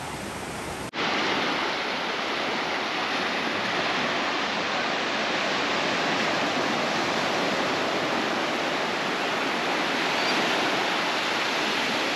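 Small waves breaking and washing up a sandy beach, a steady rush of surf. About a second in it suddenly gets louder and closer, right at the water's edge.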